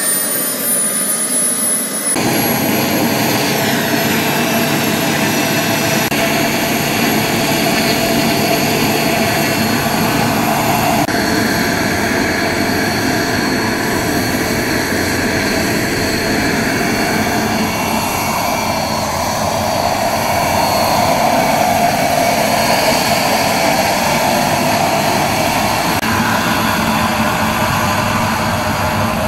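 JetCat SPT5 turboshaft turbine of a radio-controlled scale helicopter running, with a high whine that climbs in pitch in the first couple of seconds as it finishes spooling up, then holds steady. The rotor noise and turbine run on loud and steady as the helicopter lifts off and flies.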